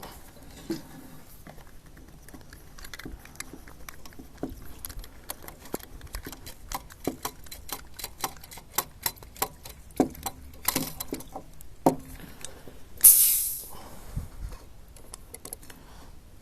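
Metal parts of an MSR WhisperLite camp stove clicking, tapping and rattling as it is taken apart by hand, in irregular small knocks that come thicker in the middle. About thirteen seconds in, a short, loud hiss.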